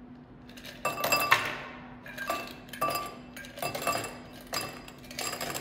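Ice cubes tipped from a stainless steel pitcher into a glass tumbler, clinking against the glass and each other in a series of short bursts.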